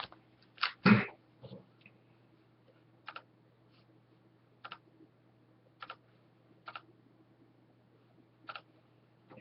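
Scattered light clicks and taps, about eight of them at irregular intervals, from hockey card packs being handled, over a faint steady electrical hum.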